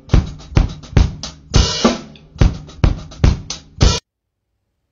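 Drum kit played in a groove: bass drum and snare strokes two to three a second under cymbal and hi-hat wash. The playing cuts off suddenly about four seconds in.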